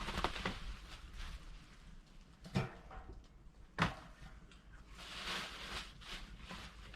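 Two sharp knocks about a second apart, the second the louder, with lighter clattering and rustling around them.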